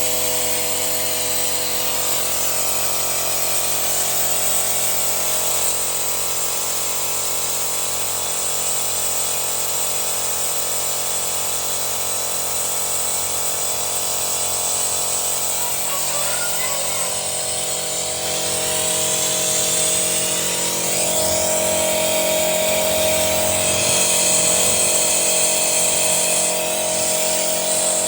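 Car engine running during a carbon-cleaning treatment, with a steady high whine and hum. About 16 seconds in its pitch rises over a few seconds, as if revved, and it then holds at the higher pitch.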